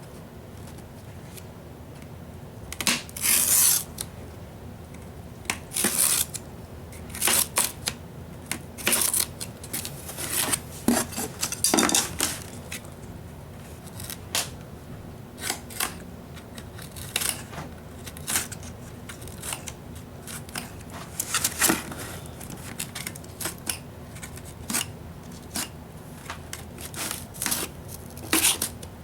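Cardboard being cut and handled: irregular scraping, rustling strokes, some brief and some about half a second long, at uneven intervals.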